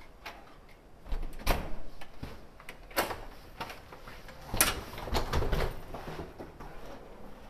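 Hotel room door being unlocked and opened: a series of sharp clicks and knocks from the lock, handle and door, the strongest about a second and a half apart.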